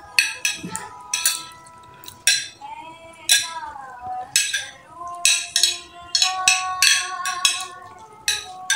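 Background music: a melody of short, struck notes stepping from pitch to pitch.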